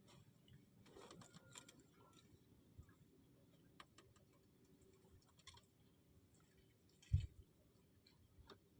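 Near silence with faint, irregular small clicks and ticks, and one dull low thump about seven seconds in.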